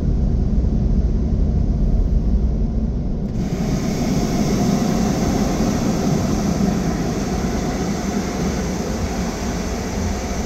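Low, steady rumble of a car rolling slowly, heard from inside the cabin. About three seconds in, a steady airy hiss cuts in suddenly and keeps going.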